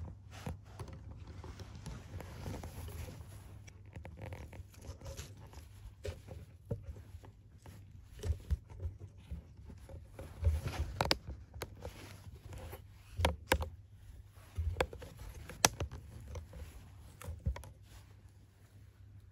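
Close handling noise: clothing rustling and scraping, with irregular sharp clicks and knocks as camera gear is moved and held. A few knocks stand out, around halfway through and again a few seconds later.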